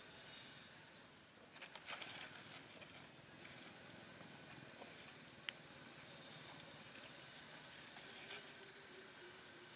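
Quiet outdoor ambience with a faint steady hiss and a few soft rustles and small clicks, as long-tailed macaques shift about on dry leaf litter. The rustling is mostly about two seconds in, with one sharp click midway and a little more rustling near the end.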